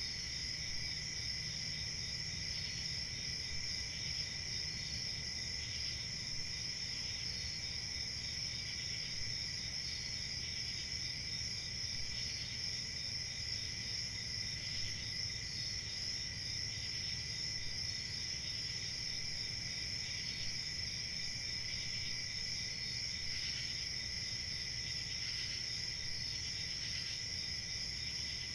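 A chorus of crickets chirping steadily, several insects trilling without pause at two different pitches, with a fainter chirp repeating about every two seconds.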